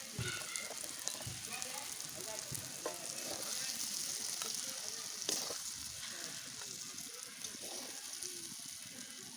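Dried-fish paste frying in oil in a kadai, a steady sizzle, with a few sharp clinks of a spoon against the pan as it is stirred. The oil has separated from the paste, the sign that the dish is cooked down and done.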